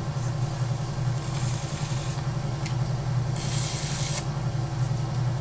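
Electric potter's wheel motor humming steadily while a tool scrapes the wet clay of a spinning pot, with two hissing swishes, the second louder, about a second and three and a half seconds in.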